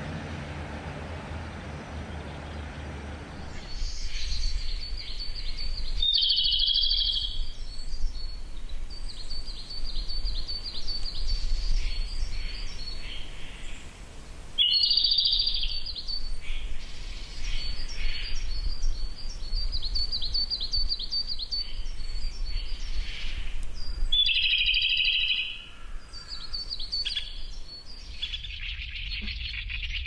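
Japanese robin singing: a loud ringing phrase about three times, roughly every nine seconds, with quicker high notes in between. Low rumbling ambience comes before the song starts, a few seconds in.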